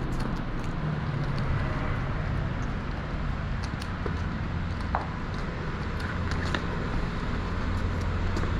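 Steady low rumble of city traffic, with a few faint clicks and taps.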